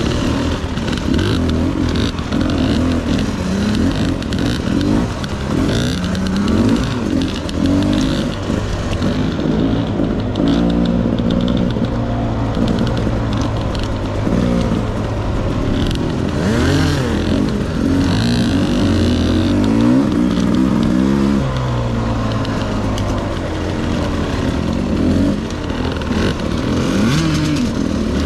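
Dirt bike engine running at low trail speed, its pitch rising and falling again and again as the throttle is opened and closed over rough ground.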